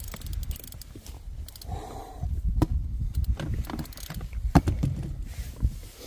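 Low rumble with handling noise and several sharp knocks. The loudest knock comes about four and a half seconds in.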